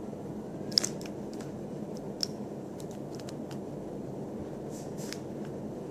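Scattered small clicks and taps from handling a rebuildable vape atomizer, the sharpest about a second in and another near two seconds, over a steady low room hum.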